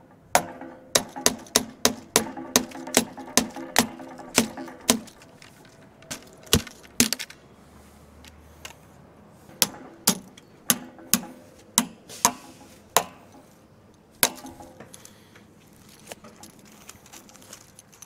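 Metal being struck against metal: repeated sharp clanks, each with a brief ringing tone, about three a second for the first five seconds, then scattered strikes and a second burst of blows.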